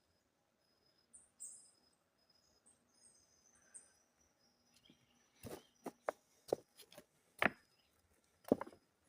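Birds chirping, then a run of irregular sharp knocks or clicks in the second half.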